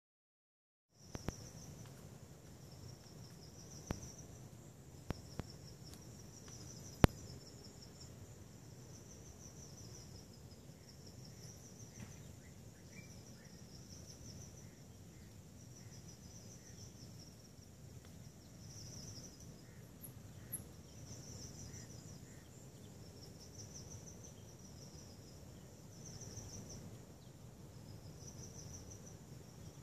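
Insects chirping in repeated high-pitched pulsed bursts about every one and a half seconds, starting about a second in, over a low steady rumble. A few sharp clicks sound in the first seven seconds, the loudest about seven seconds in.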